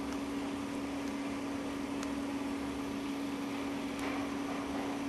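Steady electrical hum with background hiss. There are two faint taps from a stylus on a phone touchscreen, about two seconds in and near the end.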